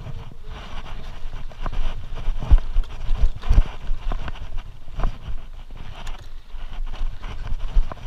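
Mountain bike rolling over a rough, rocky dirt trail: tyres crunching over stones and leaf litter, with irregular knocks and rattles as the bike jolts over rocks and roots, and a few heavier thumps around the middle.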